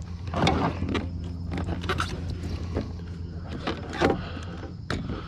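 Scattered knocks, clicks and rustles from a landing net holding a snakehead being handled against a plastic kayak, six or so sharp taps over a low steady hum.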